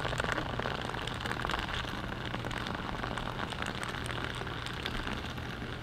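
A metal magnet dragged on a rope across asphalt, a steady gritty scraping crackle that fades slightly as it moves away.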